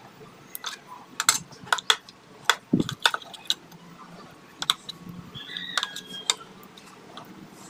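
Steel spoon clinking and scraping against a stainless-steel tiffin box as thick masala paste is spread over fish pieces inside it: irregular sharp taps with soft scraping between them.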